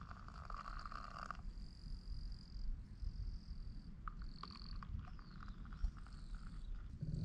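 A thin trickle of water poured from a metal mug into a collapsible bowl for black coffee. It stops sharply about a second and a half in and resumes faintly around four seconds. Between the pours come faint, short, steady high-pitched animal calls, three of them, each under a second.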